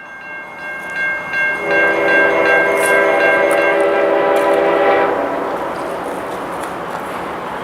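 Locomotive air horn sounding one long chord from about a second and a half in until about five seconds, over the steady rumble of a passing train.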